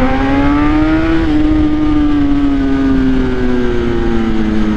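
Kawasaki ZX-10R's inline-four engine with an Akrapovič exhaust, heard from on board as the bike slows. Its note rises a little for about a second, then falls slowly, over steady wind rumble on the microphone.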